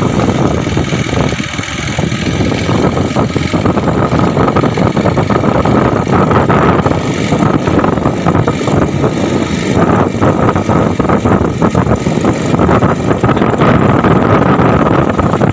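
Motorcycle engine running steadily while riding, mixed with loud wind rush over the microphone.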